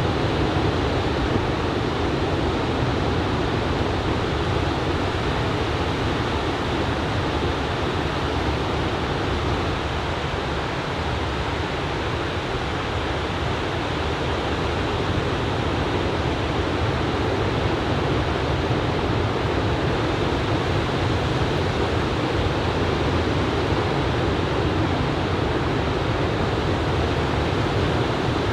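Ocean surf from a typhoon swell breaking along the beach: a steady, even rush of noise with no single wave standing out.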